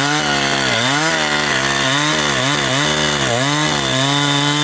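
Chainsaw running under load, cutting about a foot off the end of a large pine log. Its engine pitch dips and recovers over and over, about twice a second, as the chain bites into the wood.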